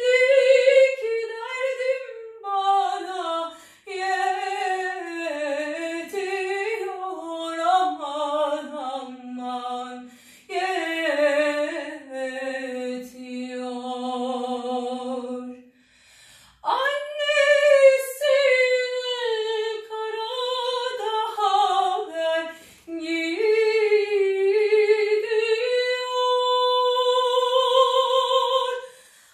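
An opera singer's trained female voice singing a Turkish folk song (türkü) unaccompanied, with ornamented, winding melodic runs and long held notes. The voice breaks off briefly about halfway through, then comes back and ends on a long sustained note.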